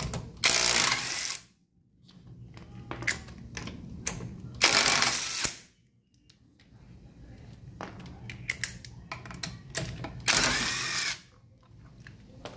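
Three loud bursts of a power tool, about a second each, cutting off sharply, with clicking and tapping of tool work between them, as wheel lug nuts are run on.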